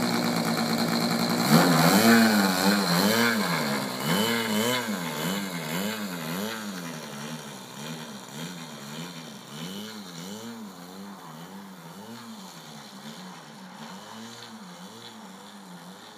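A model aeroplane's motor and propeller running: a steady high buzz at first, then from about a second and a half in its pitch rises and falls about once a second as the plane moves away across the grass and the sound fades.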